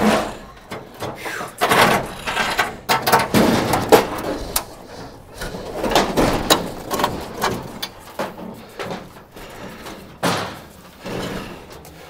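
Rusted sheet-metal body panels of an early-1930s Chevy sedan clanking and scraping against a steel trailer deck as they are shifted by hand: a run of irregular metal knocks, rattles and scrapes.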